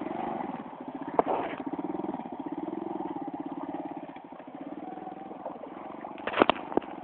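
Small motorcycle engine running as the bike rides off through mud and water, its pulsing note wavering and growing fainter as it moves away. A sharp knock about a second in, and a few more near the end.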